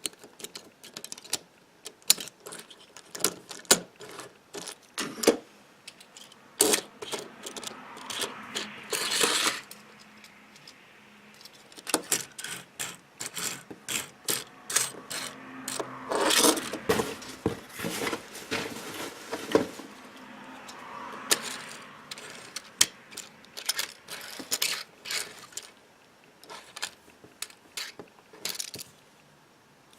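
Small die-cast toy cars being handled, clicking and clinking against each other and a hard surface in many quick knocks. There are a few longer spells of rattling and scraping.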